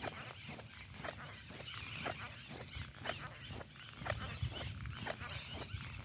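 A dog panting as it trots along on a leash, with footsteps on the pavement about twice a second.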